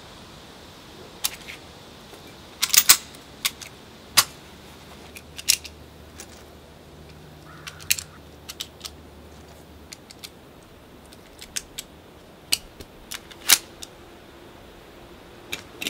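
Irregular sharp metallic clicks and clinks from handling a SIG P220 pistol and its magazine: .45 ACP cartridges being pressed into the magazine and the gun lifted out of its pouch. The loudest click comes near the end.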